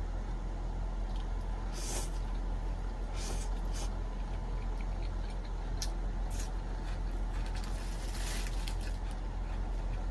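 Air conditioner in a small electric tricycle camper running with a steady low hum and hiss, with a few short rustling scrapes over it.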